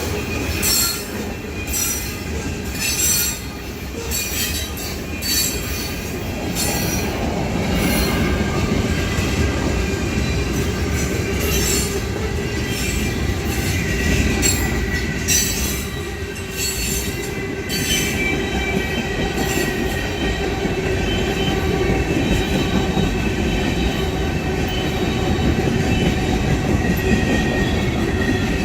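Union Pacific freight train rolling past with a steady rumble. There are sharp clicks of wheels over the rail joints, most often in the first half, and a faint high squeal of steel wheels on the rail.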